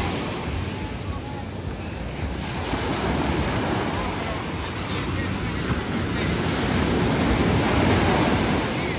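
Ocean surf breaking and washing up the beach in a steady rush, growing louder about two-thirds of the way in as bigger waves come ashore.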